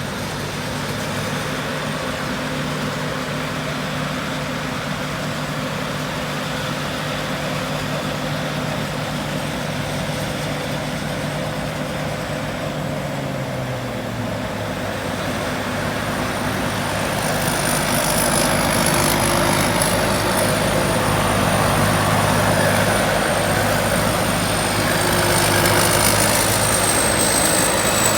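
Combine harvester's diesel engine running steadily. About halfway through its note drops, then it grows louder with a high whine.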